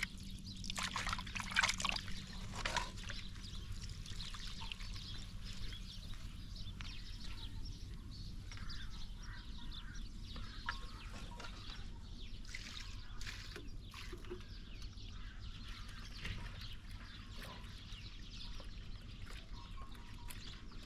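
Water splashing and sloshing in a metal pot as raw chicken pieces are washed by hand, loudest in the first three seconds. Then quieter outdoor ambience with faint scattered clicks over a steady low hum.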